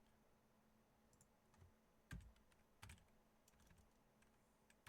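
A handful of faint, spaced-out computer keyboard keystrokes and clicks, a few keys typed to work out a percentage.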